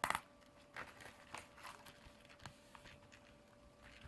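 Mailer envelope crinkling and rustling as it is handled and opened. A sharp crackle at the start is followed by scattered softer crinkles.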